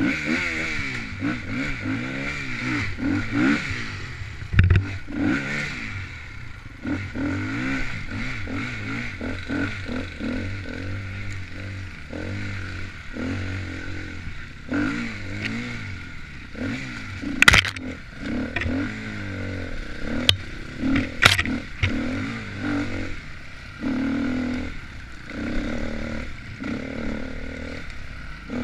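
KTM enduro dirt bike engine revving up and down continually as it is ridden over rough trail, with clattering and a few sharp knocks from the bike hitting obstacles, the loudest two in the second half.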